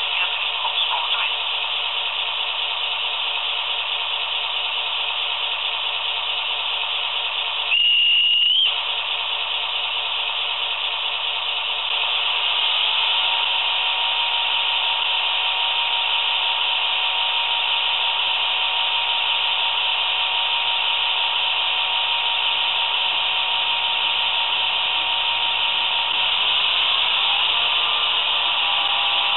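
Sound decoder of an HO-scale NMBS class 55 diesel locomotive model playing a diesel engine sound through its small speaker, a steady hissy running note. About 8 s in there is a short horn blast. The engine note steps up in level around 12 s, and rises in pitch again near the end as it revs.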